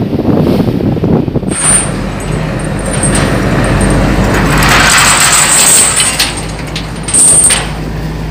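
Heavy engine running with a low steady drone under a noisy wash that swells around the middle, with two short high-pitched squeals, one about one and a half seconds in and one near the end.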